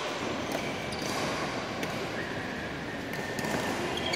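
Badminton rally: several sharp clicks of rackets striking a shuttlecock, roughly one every second, over steady background noise of a large indoor hall.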